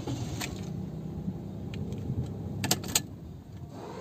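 Toyota Agya's 1KR three-cylinder engine running at idle just after being started with the key, a steady low hum, with the keys on the ignition key ring clicking twice shortly before the end.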